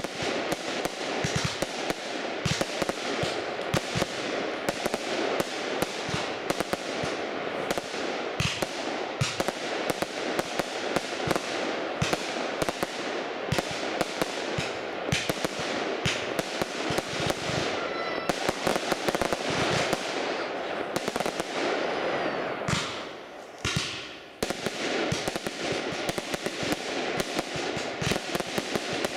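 Fireworks display: a continuous barrage of aerial shell bursts, a dense stream of bangs and crackling, easing briefly about three-quarters of the way in.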